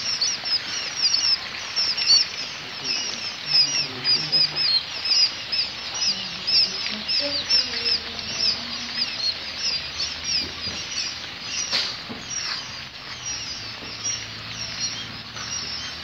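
A crowd of day-old quail chicks peeping together: many short, high, downward-sliding peeps overlapping, thinning a little in the last few seconds. A single sharp click about twelve seconds in.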